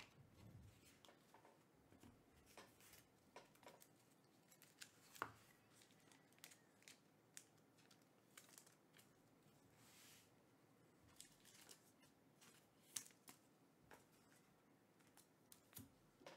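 Faint handling of trading cards: cards sliding and being set down onto stacks on a tabletop, with scattered soft clicks and rustles, the sharpest about five seconds in and again near thirteen seconds.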